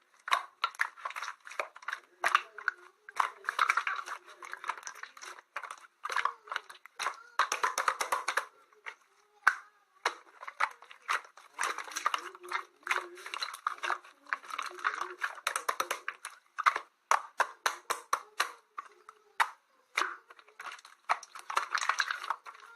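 Slime being squished and worked by hand, making dense runs of sticky clicks and pops with brief pauses between handfuls.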